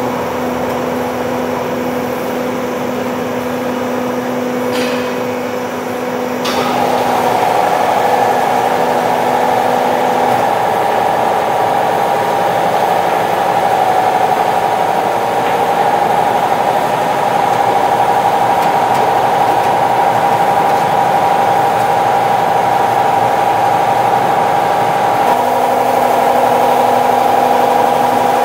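Extrusion laminating line running: a steady mechanical drone of motors and drives. About six seconds in, a louder, higher-pitched steady whine joins it and holds.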